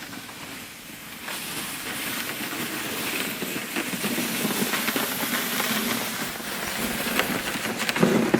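Food frying in a hot pan: a steady sizzle with many small crackles and pops.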